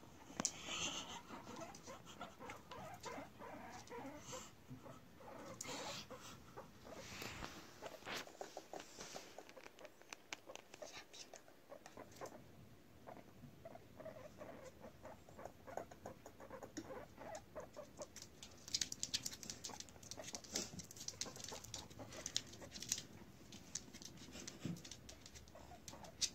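Faint tapping and pattering of guinea pigs' small claws on a laminate wood floor as they shuffle about and sniff each other, busier for a few seconds after the middle, with a few soft guinea pig calls.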